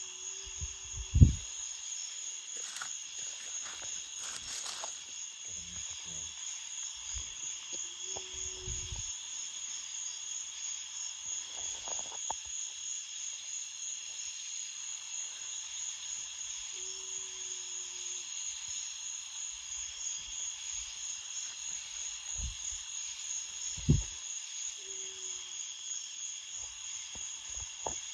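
Insects chirring steadily outdoors in a high, pulsing chorus, like crickets. Two short sharp thumps break through, a loud one about a second in and another near the end, and a brief low note sounds four times.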